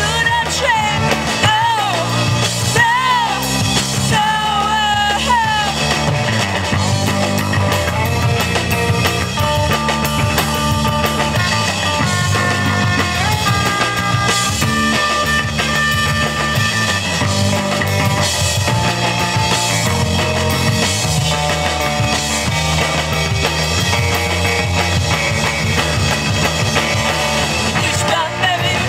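Live rock band with drum kit, electric guitars and bass playing loudly; a woman sings over the first few seconds, then the band plays an instrumental stretch before her voice comes back near the end.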